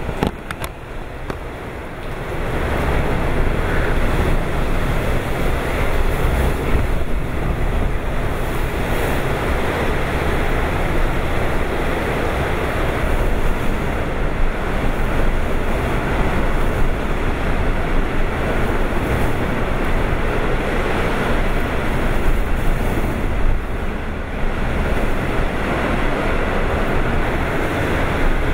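Typhoon eyewall wind and driving rain: a dense, steady rush with a heavy low rumble of wind buffeting the microphone, swelling about two seconds in.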